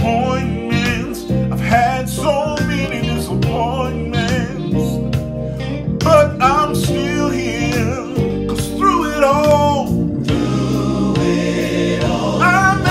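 A man singing a gospel song over instrumental backing, drawing out long, wavering notes that slide up and down in pitch.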